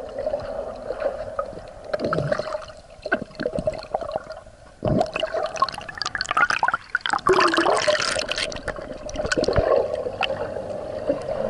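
Underwater sound picked up by a camera submerged in a swimming pool: water gurgling and bubbling around the lens, with a steady hum and a few sharp knocks.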